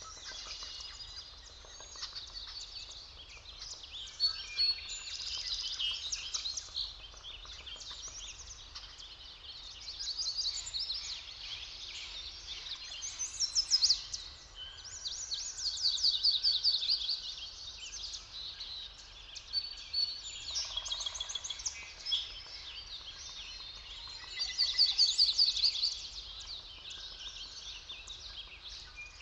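Several songbirds singing and chirping at once over a soft forest background hiss, with louder trilled phrases coming and going every few seconds.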